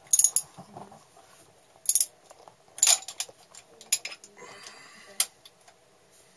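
Hand tools clinking and tapping on the metal valve gear of a Perkins 4-108 diesel: about eight sharp metallic clinks scattered over the few seconds, with a short scraping sound about four and a half seconds in.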